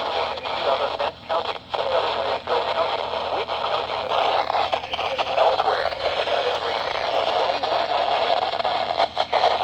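Radio static: a steady hiss from a radio receiver on a weak or empty signal, broken by a few brief dropouts.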